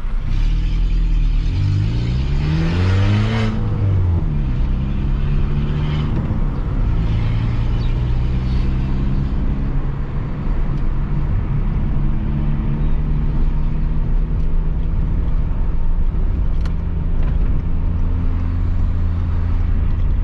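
Peugeot 206 1.4's four-cylinder engine through a straight-pipe exhaust with no muffler, revving up through a gear for about two seconds, dropping sharply at a shift, pulling briefly again, then running at a steady cruise.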